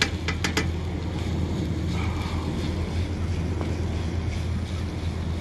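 Steady low rumble with a few sharp clicks in the first half-second.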